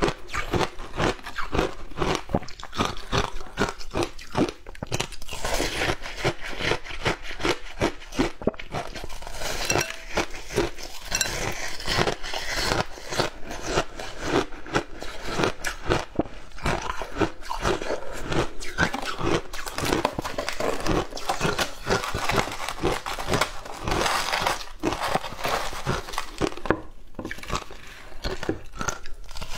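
Shaved ice crunching as it is bitten and chewed, mixed with the squeak and crunch of shaved ice being squeezed into lumps in gloved hands. The crunches come densely and unevenly throughout, very close to the microphone.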